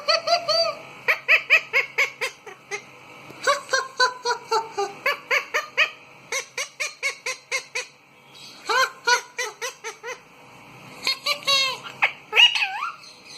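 Pet parakeet calling in several runs of quick, repeated shrill notes, about four to five a second, with short pauses between the runs.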